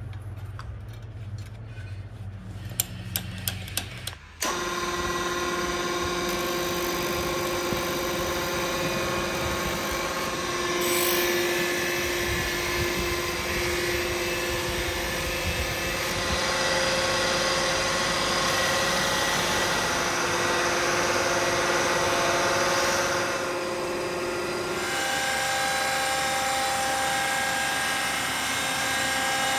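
Electric bench grinder running with a steady whine while a steel knife blade is held against its spinning wheel, the grinding hiss swelling and fading as the pressure changes. The motor sound comes in abruptly about four seconds in, after a few light clinks and knocks.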